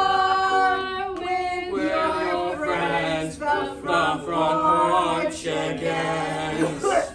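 A group of voices singing a comic theme-song parody together, holding long notes in the second half; the singing stops just before the end.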